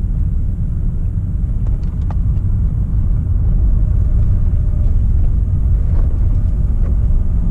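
Chevy Silverado pickup truck driving on a snowy street, heard from inside the cab: a steady low engine and road rumble that gets a little louder about halfway through.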